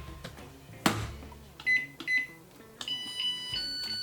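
Electric rice cooker being shut and started: a knock as the lid closes, two short beeps from its buttons, then its electronic start-up jingle of plain held tones stepping through a short tune.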